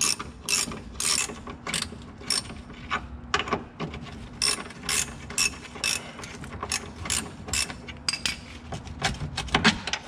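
Hand ratchet wrench clicking in short bursts, about two a second, as it is swung back and forth to run a nut loose. There is a quicker cluster of clicks near the end.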